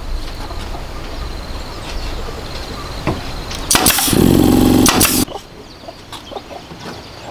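Pneumatic nail gun at work fixing bamboo slats, over a steady low hum. About four seconds in comes a loud burst lasting about a second and a half, then only faint taps and clicks of bamboo.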